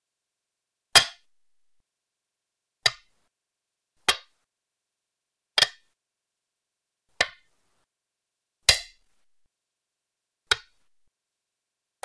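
Go stones set down one at a time on a wooden board: seven sharp, separate clicks, each with a short ring, spaced unevenly about one to two seconds apart.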